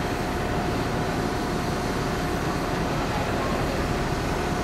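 Steady drone of a docked car ferry's machinery: an even rumble with a thin, constant whine on one note.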